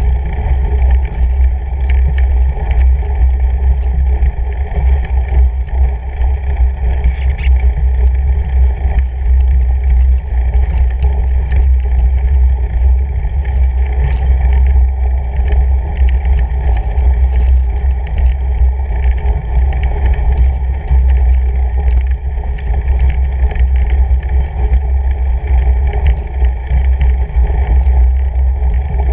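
Fat bike riding over packed snow, heard through a handlebar-mounted action camera: a loud, steady, low rumble of tyre and wind noise with scattered faint clicks.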